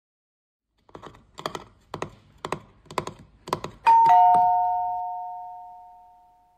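A row of six light taps about half a second apart, then a two-note ding-dong doorbell chime, high note then low, that rings on and slowly fades away.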